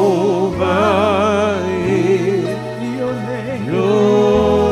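A woman singing a slow gospel song with strong vibrato on long held notes, over steady low accompaniment notes that change every second or so.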